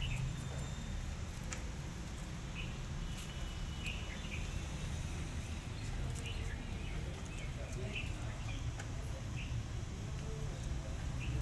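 Small birds chirping, short separate calls scattered through, over a steady low background rumble.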